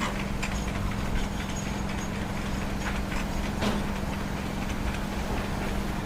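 An engine running steadily with a low, even hum, and a few light clicks and knocks on top.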